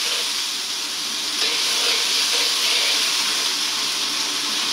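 Bullfrog pieces sizzling in hot oil in a wok while being stir-fried with a metal ladle: a steady hiss that grows a little louder about a second and a half in.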